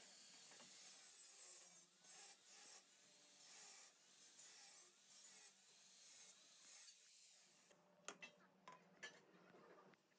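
Repeated rasping, scraping strokes of uneven length, then a few light clicks near the end.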